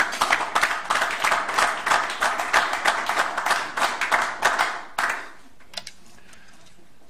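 Audience applauding: dense clapping that stops fairly abruptly about five seconds in, followed by a few last scattered claps.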